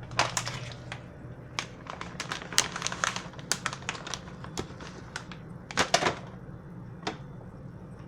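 Irregular clicks and knocks of a pound of cheese being put into a bowl of pasta salad, with two louder knocks close together about six seconds in, over a steady low hum.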